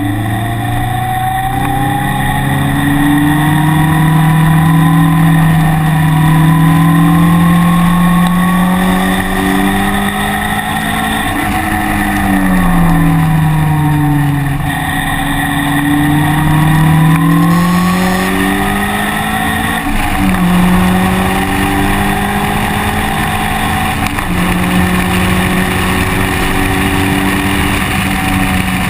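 A vehicle's engine driven hard on a track: the engine pitch climbs, falls around the middle, climbs again, then drops twice more near the end as it shifts gear and slows. Steady wind and road noise run underneath.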